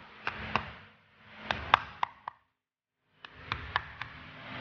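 A white soft-faced mallet tapping a new main oil seal into its housing on a Sabb K4D marine engine, working round the seal to drive it in evenly. A dozen or so light, sharp knocks come in two runs, with a second of silence between them.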